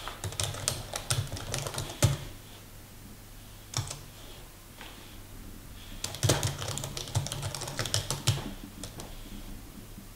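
Typing on a computer keyboard: a quick run of keystrokes at the start, a lone key press near four seconds in, and a second run from about six to eight seconds in, with a few stray presses after it.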